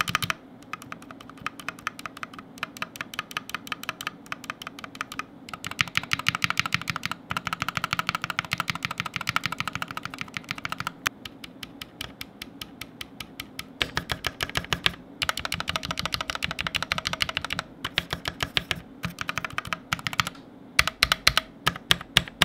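Repeated keystrokes on the stabilized keys of a GMMK Pro keyboard with its stock, factory-lubed Glorious GOAT screw-in stabilizers: fast clacking runs on the Enter key and then the spacebar, broken by short pauses. The stabilizers still rattle noticeably. The loudest clacks come near the end.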